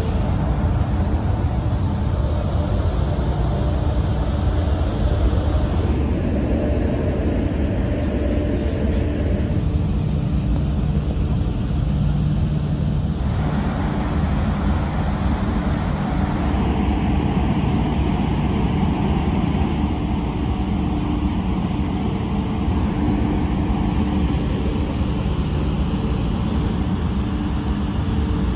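Steady low drone of the ferry Excellent's engines and ventilation, with a hum of several steady tones under it. The hiss above the drone shifts a few times.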